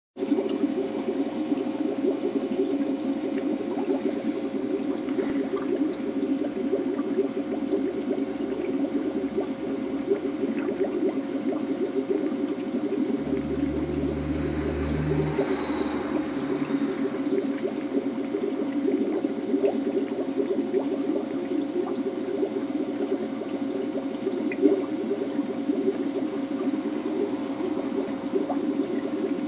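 Steady bubbling and trickling of an aquarium's circulating water, with a faint steady hum. A brief low rumble about halfway through.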